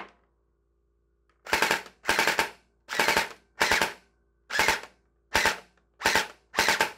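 Hydro Strike Pulsar Pro gel blaster's electric V3-style gearbox cycling in about eight short full-auto bursts, with the motor spinning the gears and the piston slamming back and forth. The motor's fore-aft position is being set for pinion-to-bevel gear mesh, where a motor pushed too far forward whines.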